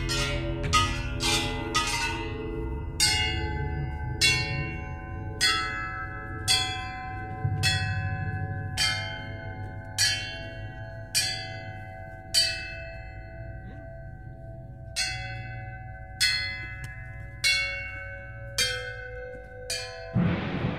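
Music of struck bells, like tubular bells: ringing notes at a steady pace of about one a second, each ringing on over a low drone. A short rushing whoosh comes in just before the end.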